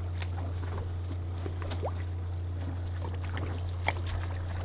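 Boat engine idling, a steady low hum, with faint scattered ticks and splashes above it.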